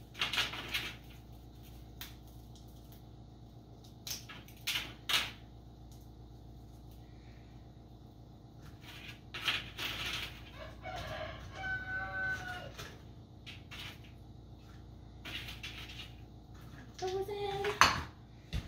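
Dried, brittle bouillon chunks being snapped and broken by hand on a metal sheet pan, a handful of short crackles and clatters with the loudest near the end. About eleven seconds in, a drawn-out bird call sounds in the background for a couple of seconds.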